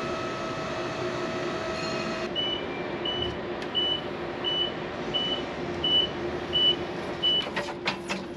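A powered pallet stacker's electric lift motor whines steadily for about two seconds as it raises a pallet-loaded welder-generator. Then its warning beeper sounds eight evenly spaced high beeps, about two-thirds of a second apart, over a steady low hum. A few sharp clunks come near the end as the pallet is set down.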